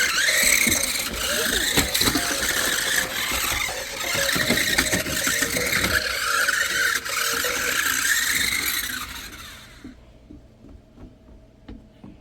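Toy RC stunt car's small electric motors and plastic gearing whining and rattling, the whine rising and falling in pitch as it drives and spins. It stops about ten seconds in, leaving a few faint clicks.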